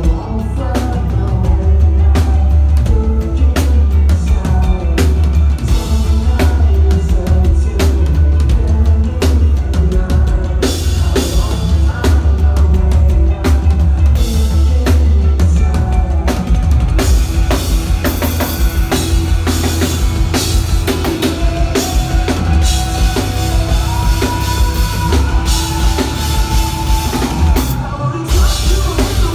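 Rock band playing live, loud and drum-driven with a heavy low end; about ten seconds in the sound turns fuller and brighter as cymbals and more instruments come in.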